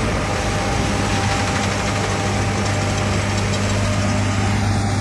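John Deere S785i combine harvester running steadily, a constant low engine hum with a few steady higher tones over it.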